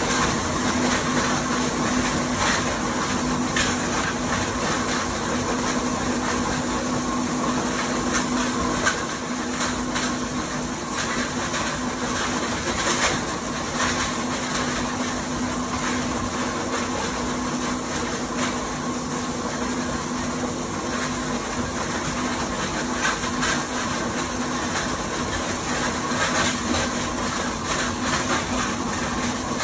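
ZCS 600 plastics grinder running steadily with a constant hum while plastic shovel parts are fed into it. Irregular sharp cracks and clatters sound as the parts are ground.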